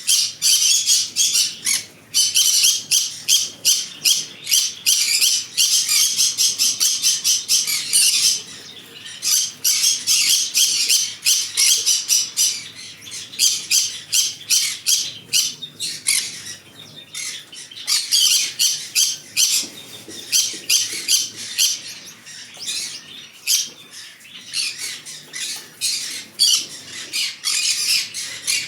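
Green-cheeked conure squawking in rapid, high-pitched, repeated calls, several a second, in long runs with brief lulls.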